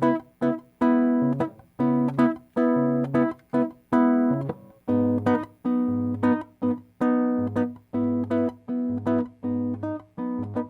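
Acoustic guitar (violão) strumming a rhythmic chord pattern as a song's intro, each chord struck and then briefly cut short. The bass note drops to a lower chord about halfway through.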